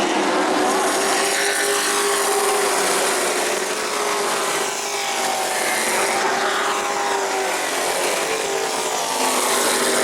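Several racing trucks' engines running at high revs on the track, their pitches rising and falling as they go through the turns and pass by.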